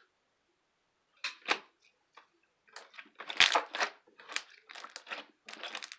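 Slime being squeezed and pressed, giving clusters of sharp clicks and crackles. It starts about a second in and comes in irregular bursts, loudest around the middle.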